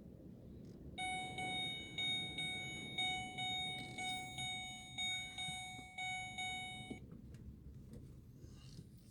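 An electronic chime of pitched beeps at about two a second, the notes not all on the same pitch. It sounds for about six seconds and stops suddenly, over a low steady rumble.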